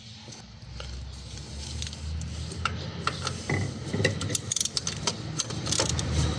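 Metal tools being handled: clinks, clicks and scraping as a 22 mm deep socket on a wrench is fitted onto a reversing light switch. A low rumble comes in about a second in, and the clicks grow busier in the second half.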